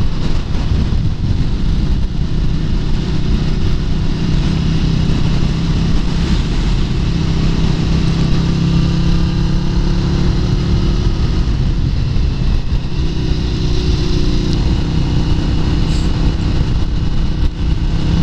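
A 1996 Yamaha SRV250 Renaissa's air-cooled 249 cc V-twin running steadily under way on the move, with wind rushing over the camera microphone. There is a brief dip in the engine note about two-thirds of the way through.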